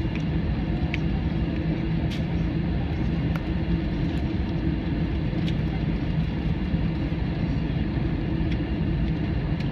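Steady low drone of an airliner's engines and airflow heard inside the cabin, even in level throughout, with a few faint small clicks.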